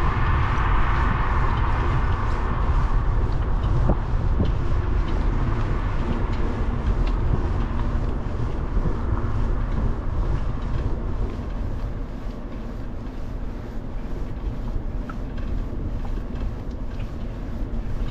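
Steady rumble of wind on the microphone and tyre noise from a bicycle riding along an asphalt road, with a louder rush in the first couple of seconds.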